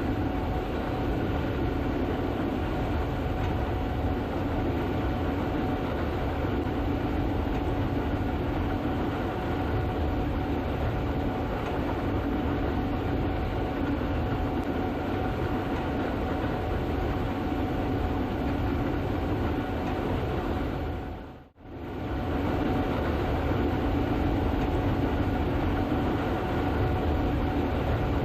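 Gleaner S98 combine harvester running steadily while harvesting soybeans: a constant machine drone with a steady whine in it. It briefly fades out and back in about three-quarters of the way through.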